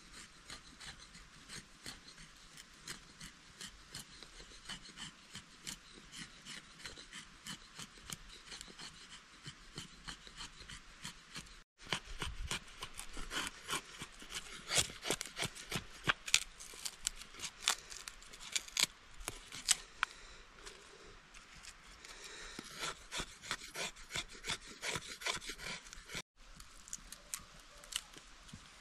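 Repeated short rasping, scraping strokes, irregular and several a second, louder in the middle. The sound drops out for an instant twice, about twelve and twenty-six seconds in.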